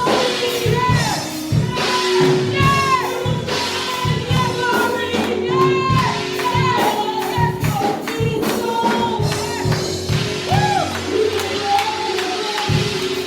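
Gospel worship music: singing voices that glide and bend in pitch over a steady beat, with tambourine.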